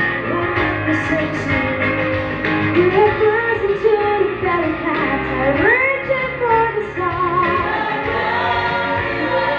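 A woman singing a melody through a microphone, accompanied on a Yamaha electronic keyboard. Her voice wavers on held notes and swoops up and back down about halfway through.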